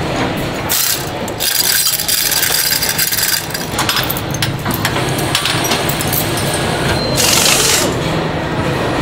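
Truck assembly-line air tools and machinery: a hissing burst with rapid clicking starts about a second in and runs about two seconds, and a shorter hiss comes near the end, over a steady low factory hum.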